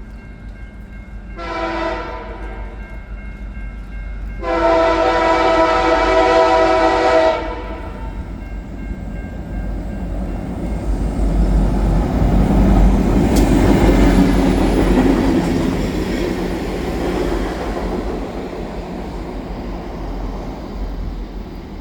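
A diesel locomotive leading a track geometry train sounds its horn, a short blast and then a long one, each a chord of several tones. The train then passes with rising engine and wheel rumble, loudest about two-thirds of the way through, with a sharp click at its peak, then fades away.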